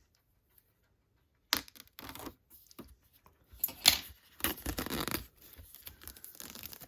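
Plastic shrink-wrap being torn and peeled off a metal tin in several uneven rips, starting about a second and a half in, with one sharp crackle near the middle and a softer crinkling toward the end.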